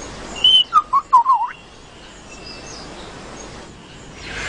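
Lyrebird calling: a short high whistle, then a quick run of four loud warbling notes ending in a swoop down and back up, all within the first second and a half. Faint distant bird twitters follow.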